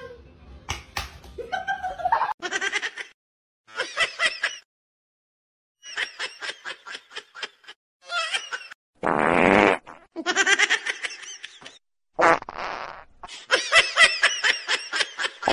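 People laughing in several separate bouts of quick, rhythmic bursts, broken by short silences. About nine seconds in, a loud buzzing noise lasts roughly a second.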